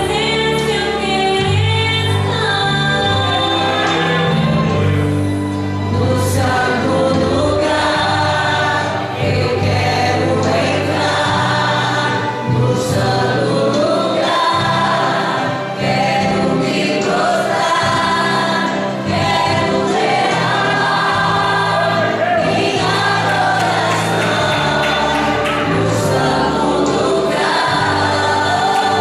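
A group of women singing a Portuguese gospel hymn together in unison, over an accompaniment with held bass notes that change in steps.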